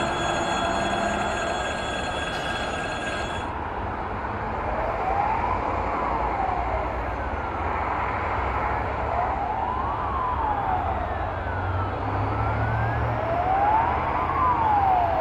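A siren wailing up and down about every four seconds over the low rumble of an approaching EP20 electric locomotive hauling a passenger train, which grows louder near the end. In the first few seconds, before a cut, steady high tones are heard instead.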